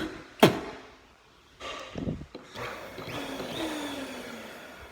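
Two sharp electrical snaps as bare wires spark against the vacuum cleaner's contacts, then about two and a half seconds in the vacuum cleaner's motor hums briefly, its pitch falling as it winds down.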